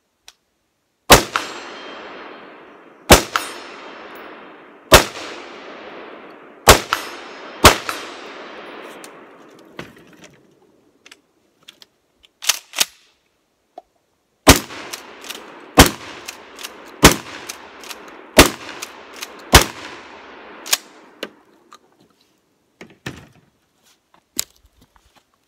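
Eleven single gunshots from a shouldered long gun, fired one at a time about one to two seconds apart, each followed by a long echo off the surrounding forest. The first five come close together, then there is a pause of several seconds with two sharp clicks, then six more shots.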